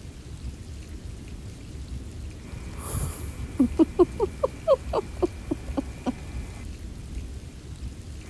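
Steady rain ambience. In the middle, a quick run of about a dozen short pitched squeaks, each rising in pitch, comes at about four a second and then stops.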